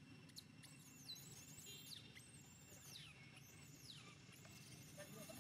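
Baby monkey's faint, high-pitched squeals, each sliding down in pitch, about one a second.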